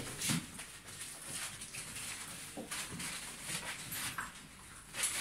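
A litter of six- to seven-week-old Doberman puppies in a playpen, making scattered short whines and yelps.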